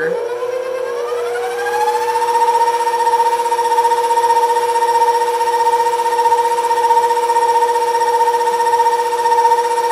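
KitchenAid Professional 600 stand mixer whipping egg-white batter with its wire whisk: the motor whine rises in pitch over the first two seconds as it comes up to medium speed, then holds a loud, steady whine.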